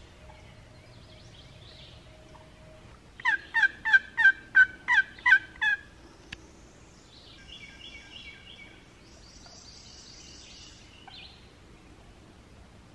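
Turkey yelping: a run of about eight loud, evenly spaced yelps lasting under three seconds, each a short note dropping in pitch. Small woodland birds chirp faintly afterwards.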